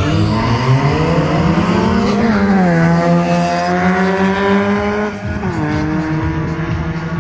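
Race car engine accelerating hard down the strip, its pitch climbing and then dropping at upshifts about two seconds in and again about five seconds in, after which it holds a steady note.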